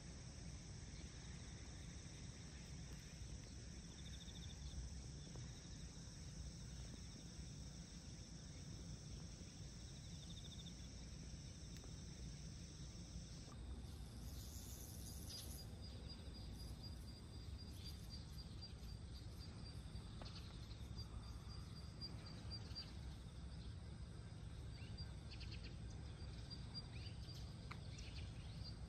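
Outdoor ambience of insects over a low steady rumble: at first a continuous high shrilling drone, which about halfway through gives way to a thin, evenly pulsing high trill with a few faint clicks.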